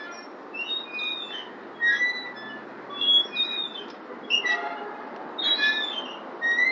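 Metal playground glider swing squeaking at its pivots as it rocks back and forth, a high squeal coming roughly once a second.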